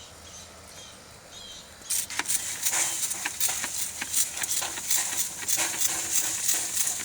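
Hand spray bottle squirting water in quick repeated bursts onto a small flame inside a dishwasher converted into a meat smoker, to damp the flame down. The squirting starts about two seconds in, after a quiet stretch.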